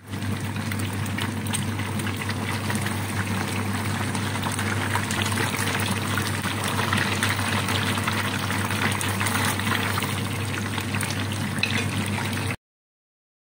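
Tofu blocks deep-frying in hot oil, sizzling and crackling steadily, with a low steady hum underneath. The sound cuts off suddenly about a second before the end.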